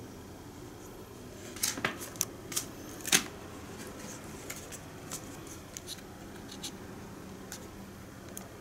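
Sharp plastic clicks and taps from handling an N-gauge model train set's plastic case and tray while a car is lifted out. A quick cluster of louder clicks comes between about one and a half and three seconds in, then lighter scattered ticks.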